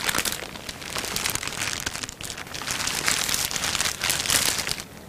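Clear plastic bag crinkling and rustling as hands unwrap it, in a few loud bursts (at the start, around three seconds in and just after four seconds) before it settles to a quieter rustle near the end.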